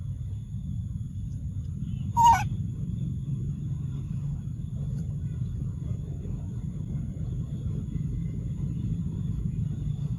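A single short, sharp monkey call about two seconds in, falling slightly in pitch, over a steady low rumble of wind on the microphone.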